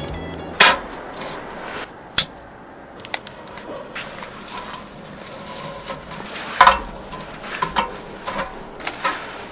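Camping gear being handled and set up: scattered knocks, clinks and rubbing of metal and wood, with sharp knocks about half a second in, at two seconds and near seven seconds.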